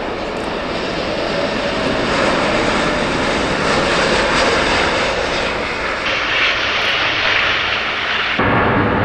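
Airbus A380 four-engine jet airliner at takeoff power: a loud, steady jet roar that swells as the aircraft lifts off and climbs away. The roar changes abruptly just after eight seconds in, with more low rumble.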